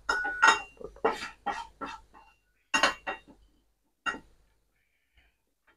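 Metal cookware and utensils clinking and clattering on the stove: a quick run of sharp clinks, some briefly ringing, in the first two seconds, then a few more, the last about four seconds in.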